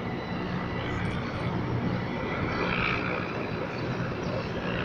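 A group of military helicopters flying past: a steady rotor and engine drone with a low hum.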